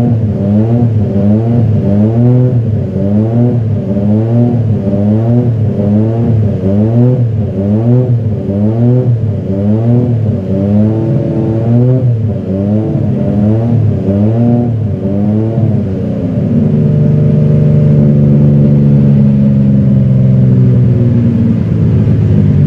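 McLaren MP4/2's TAG Porsche 1.5-litre turbocharged V6 running on a stationary car, blipped up and down over and over at about one rev a second. About two-thirds of the way in it is held at a steady raised rev, louder and even.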